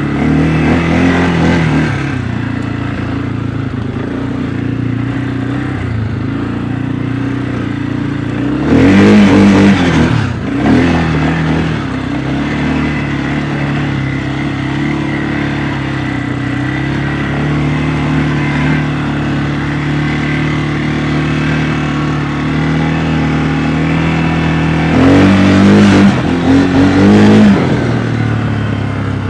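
CFMOTO CForce 600 ATV's single-cylinder engine running steadily under way. It revs up hard about a third of the way in, then again near the end with several quick throttle blips.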